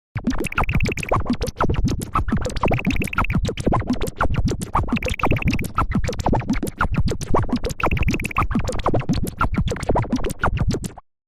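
Music or a sound-effect track of dense, scratchy clicks, with a short high buzzing trill that comes back about every two and a half seconds; it stops suddenly near the end.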